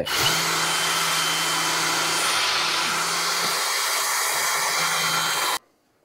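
Cordless drill spinning a bristle brush inside a combi boiler's coiled stainless-steel heat exchanger, scrubbing built-up dust off the coils. It runs steadily for about five and a half seconds, then stops suddenly.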